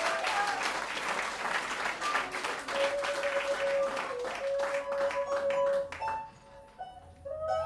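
Audience applauding, with held musical notes sounding under it; the clapping dies away about six seconds in, and a melody of held notes begins near the end.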